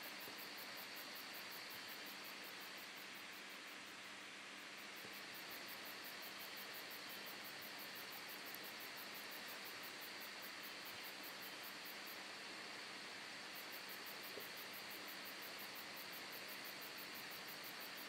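Faint, steady room tone: an even hiss with a low hum, and nothing else happening.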